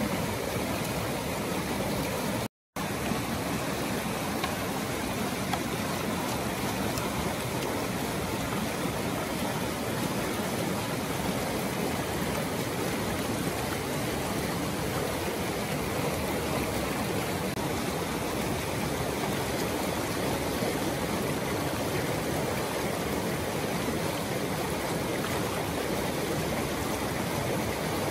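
Shallow rocky stream rushing steadily over boulders and rapids, a continuous even wash of white water, cut off to silence for a split second about two and a half seconds in.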